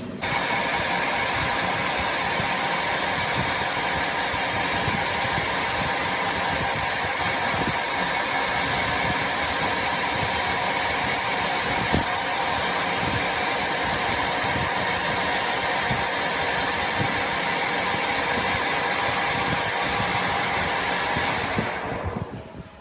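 Loud, steady running of a workshop machine or power tool, starting suddenly and holding for about twenty seconds before dying away near the end.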